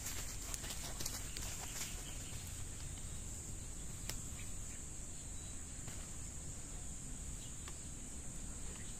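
Insects buzzing steadily in a high, unbroken drone, with a few faint clicks and rustles, one of them clearer about four seconds in.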